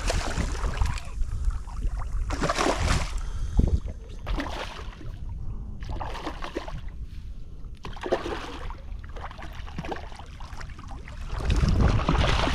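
A hooked redfish splashing at the surface beside a kayak in a series of brief splashes, with one sharp knock a little past three seconds in. Wind rumbles on the microphone throughout and swells near the end.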